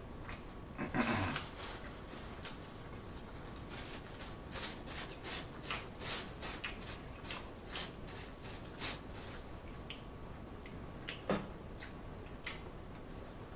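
Faint close-miked chewing with the mouth closed: soft wet smacks and clicks, a couple a second, with a short low hum about a second in.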